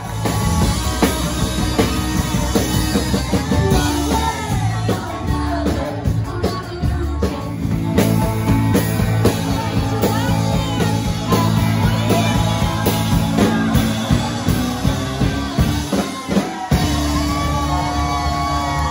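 A live rock band playing: drum kit, bass, guitar and a sung lead vocal. Near the end the bass and drums drop out for a moment, then come back in.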